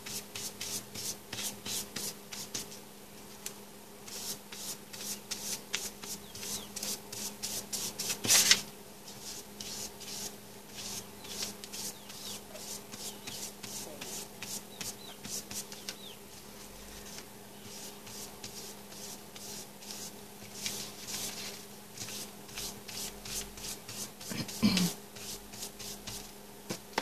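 Paintbrush stroking Mod Podge glue across a dictionary page: quick, repeated scratchy brush strokes, a few a second, over a faint steady hum. One louder sound stands out about eight seconds in, and another shortly before the end.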